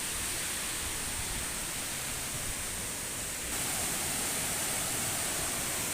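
Waterfall's rushing water: a steady, dense hiss that gets louder about three and a half seconds in.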